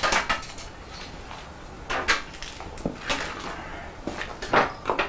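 Irregular knocks and clatters as parts of a hand-set Harris tweed loom are handled during setting up, with sharper knocks about two seconds in and again near the end.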